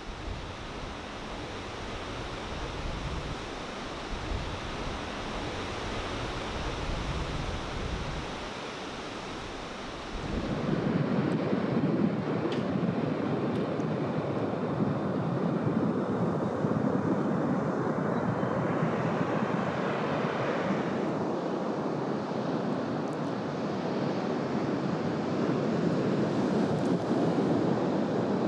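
Ocean surf breaking and washing up the beach, with wind buffeting the microphone in a low, uneven rumble at first; about ten seconds in the sound cuts to closer, louder surf without the rumble.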